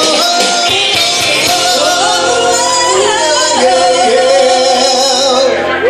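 A woman and a man singing a karaoke duet into microphones over a recorded backing track, heard through a PA system.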